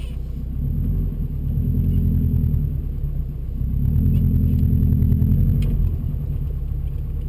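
Subaru WRX's built turbocharged flat-four engine (a bored EJ25-based STi hybrid) running while the car is driven, low and rumbling. It gets louder for two stretches of about two seconds each, the first starting about a second in and the second about three and a half seconds in, then eases back.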